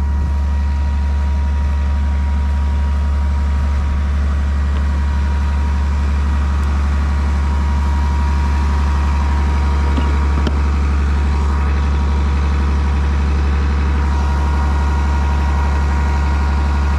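Case IH 7120 tractor's diesel engine running at a steady speed, a constant low drone with steady tones above it.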